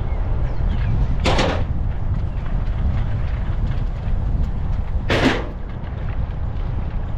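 Steady low wind rumble on the microphone of a cyclist riding a road bike at speed. Two short, sharp noise bursts break it, about a second in and again about five seconds in.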